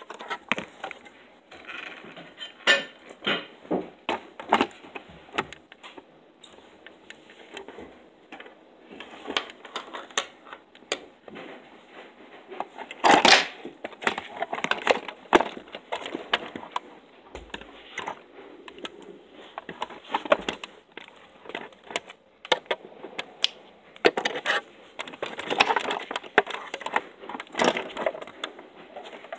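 Handling noise of a phone camera being carried and moved: irregular clicks, knocks and rustling, with the loudest knock about thirteen seconds in.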